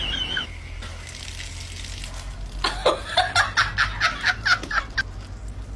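Someone laughing in a quick run of about ten short bursts, roughly four a second, starting about halfway through.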